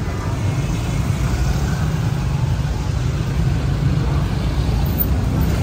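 Steady low rumble of street traffic, vehicle engines running.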